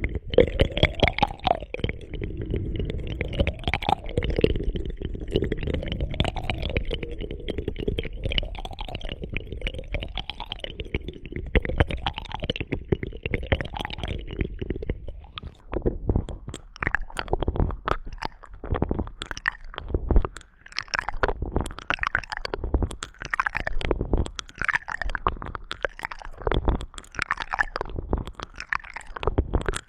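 Close-up ASMR ear-cleaning sounds on a microphone: slow rubbing and scraping strokes about every two seconds, giving way about halfway through to a run of quick crackly clicks and pops.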